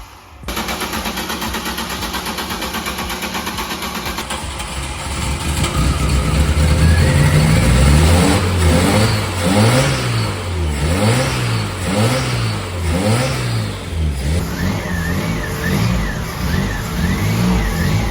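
VW Citi Golf's petrol engine catching about half a second in and idling steadily, then revved up and down over and over, about once a second, on its newly fitted clutch kit.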